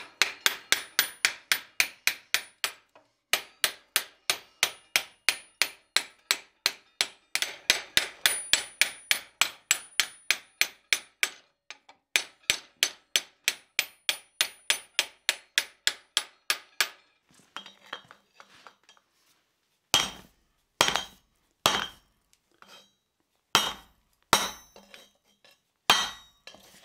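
Hand hammer striking the edge of a red-hot steel disc held against a swage in a vise, rounding the edge over: fast, ringing steel-on-steel blows about three or four a second in runs with short pauses. About two-thirds of the way through the hammering stops, and after a few faint taps come heavier, duller single blows about a second apart from a rawhide mallet on the hot disc in a round steel form.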